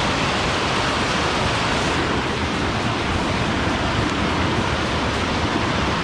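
Steady rushing of fast-flowing water from a creek swollen by floodwater.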